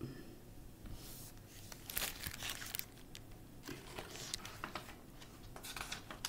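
Paper pages of a picture book rustling and crinkling as they are handled and turned, a run of short scraping rustles starting about a second in.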